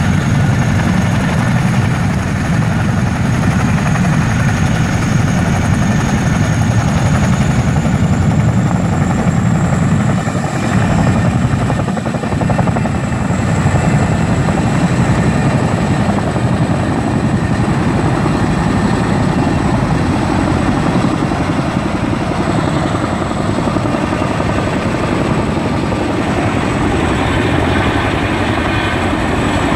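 Boeing CH-47 Chinook tandem-rotor helicopters running loud and steady: heavy rotor chop with the high whine of the turbine engines. About eight seconds in the whine rises a little in pitch as one helicopter powers up and lifts off.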